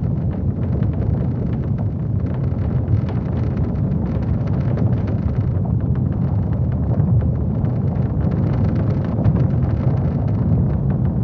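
Earthquake sound effect simulating ground shaking: a loud, continuous low rumble with crackling over it.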